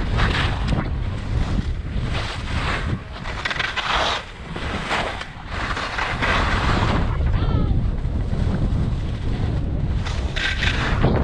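Wind buffeting the microphone of a skier's body-mounted camera, with the hiss and scrape of skis on packed, chopped-up snow swelling with each turn.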